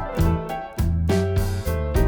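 Background music with a steady beat and keyboard-like notes.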